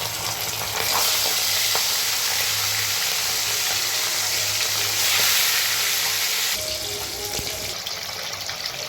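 Rohu fish pieces sizzling in hot mustard oil in a kadai, a dense steady sizzle that eases off about two-thirds of the way through, with a few light clicks.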